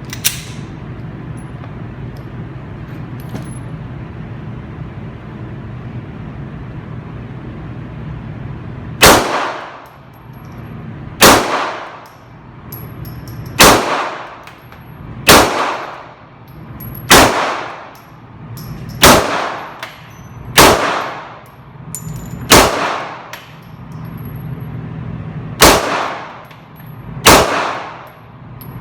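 A steady low hum for the first nine seconds, then ten pistol shots fired one at a time, about two seconds apart with one longer pause, each trailing off in echo.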